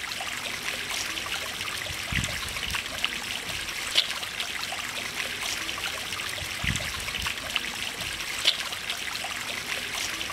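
Fountain water trickling and splashing steadily, with a soft low thud twice.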